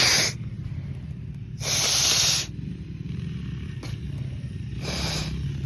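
A person in a sneezing fit giving three short hissing bursts of breath through the nose and mouth: one right at the start, a longer one of about a second two seconds in, and a shorter one near the end, over a steady low hum.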